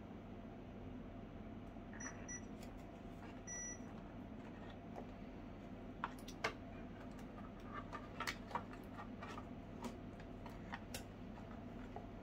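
Two short electronic beeps from the RC truck's electronics, about two seconds in and again a second and a half later, followed by small clicks and taps as fingers handle the wiring and plastic parts, over a steady low hum.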